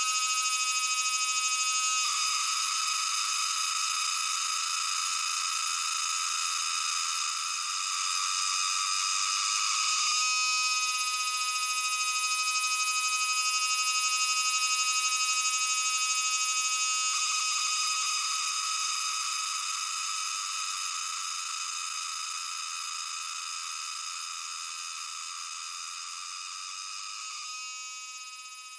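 Platylomia pieli cicada singing a shrill song like metal being ground, switching every few seconds between a clearer ringing tone and a harsher buzz, and gradually fading over the last ten seconds.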